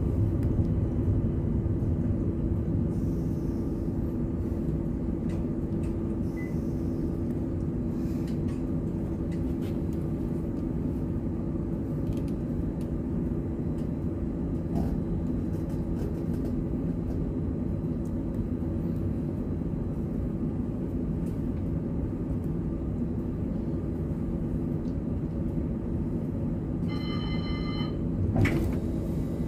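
Steady low hum and rumble inside the cab of a CAF Urbos tram, with a constant mid-pitched tone running through it. Near the end a short ringing tone with several pitches sounds for about a second and a half, then a sharp click.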